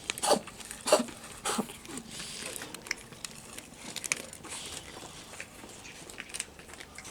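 Cats at a food offering: crinkling and crunching, with three loud sharp bursts in the first two seconds, then softer scattered clicks and rustles.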